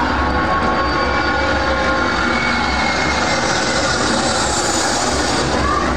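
A loud, steady jet-aircraft roar with a low rumble and a faint held whine, starting suddenly and going on evenly, most likely a sound effect played through the hall's speakers.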